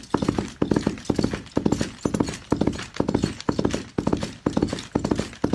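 Foley galloping-horse effect: hoofbeats in a steady gallop rhythm, clusters of three or four strikes a bit more than twice a second, built up from hoof strikes mixed with rattled saddle-and-bridle chains and leather and bounced metal armour sheets.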